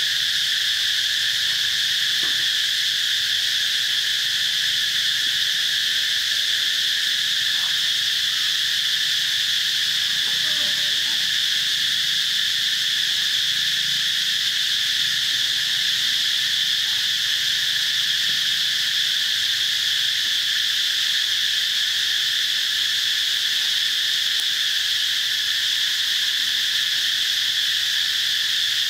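Steady chorus of insects: a continuous high buzzing drone that holds the same level and pitch without a break.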